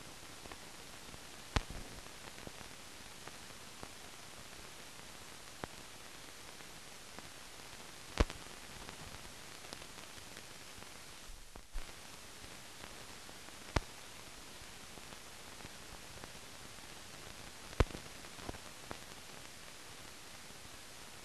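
Steady hiss of an old optical film soundtrack carrying no recorded sound, broken by a few sharp pops and clicks scattered through it. The hiss briefly drops away about halfway through.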